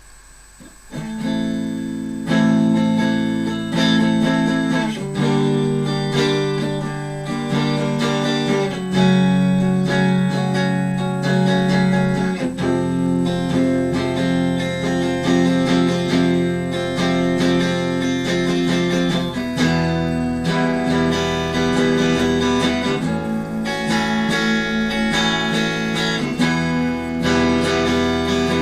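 Clean electric guitar, a Squier Affinity Stratocaster played through a Fender Frontman 15G amp, playing a slow ambient desert-rock instrumental of ringing chords and picked notes. It comes in about a second in.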